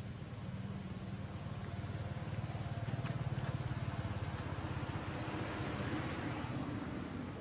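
Low engine rumble from a passing vehicle, growing louder to a peak about halfway through and then fading.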